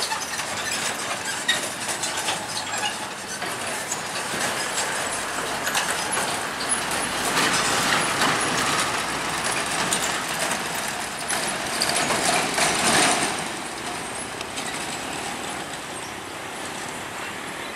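Heavy trucks driving slowly over a railway level crossing: diesel engines running and tyres rolling across the rails, mixed with other road traffic. The noise swells in the middle as the trucks come closest.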